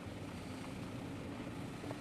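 Car's engine and tyre noise while driving, a steady low hum picked up by a dash camera microphone inside the cabin.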